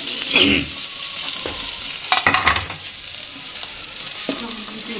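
Sliced onions sizzling in hot oil in a frying pan while a spatula stirs them, with two louder bouts of the spatula scraping across the pan, about half a second in and about two seconds in. The onions are being lightly sautéed to soften them.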